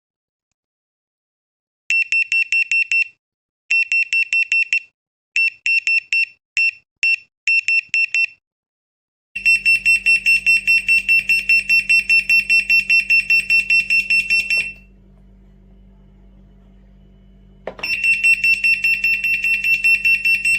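A TOWODE WiFi water leak detector sounds its alarm, signalling water at its sensor: rapid high-pitched electronic beeping, about six beeps a second. It comes first in short broken bursts, then beeps continuously for about five seconds, stops for about three seconds, and starts again near the end, with a low hum under the later beeping.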